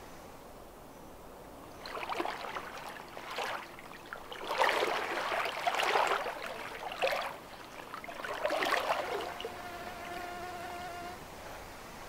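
Legs in chest waders pushing through shallow river water: a run of swishing, splashing wading steps from about two seconds in until near nine seconds, loudest in the middle. Near the end an insect buzzes briefly.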